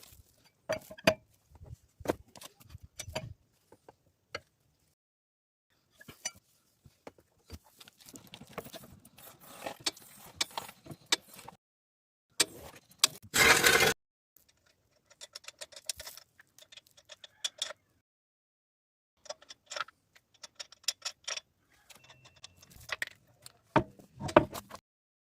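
Scattered metal clicks, clinks and knocks of hand tools and brake parts being handled, with runs of fast ticking and one loud, noisy burst under a second long about 13 seconds in.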